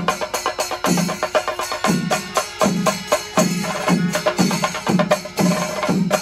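Chembada melam: massed chenda drums in full flow, sharp stick strokes over deep bass strokes at about two a second, with ilathalam cymbals clashing throughout.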